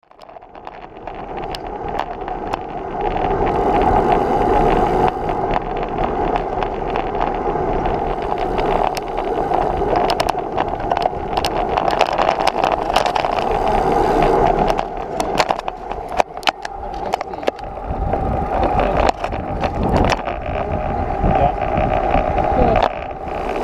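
Riding noise from road bicycles picked up by a bike-mounted camera: a steady rush of wind on the microphone and tyres on tarmac, with scattered sharp clicks and knocks from bumps in the road. It fades in over the first few seconds.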